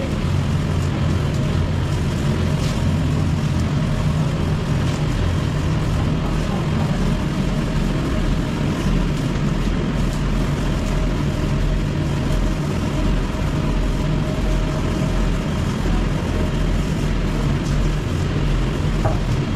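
Steady low mechanical hum of kitchen machinery, even and unbroken, with a few faint clinks now and then.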